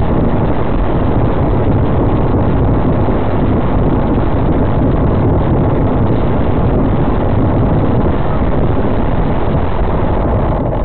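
Loud, steady rumble of a moving vehicle: road and engine noise, with no distinct impact.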